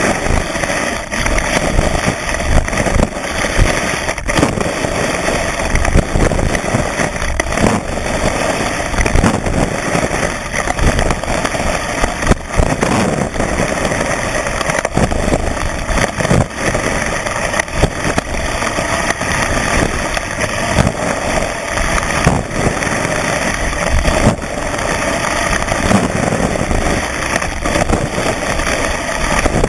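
Skis running fast over snow, picked up by a camera mounted on the ski itself: a loud, steady rumbling hiss from the bases and edges on the snow, with frequent small knocks as the ski rides over bumps.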